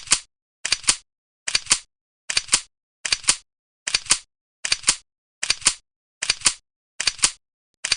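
Sharp double clicks repeating at an even pace, about every 0.8 seconds, with dead silence between them: a looped click sound effect.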